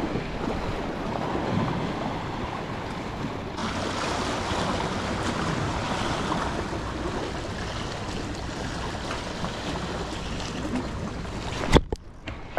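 Waves washing against jetty rocks, a steady rush with wind on the microphone. A single sharp knock near the end is the loudest sound.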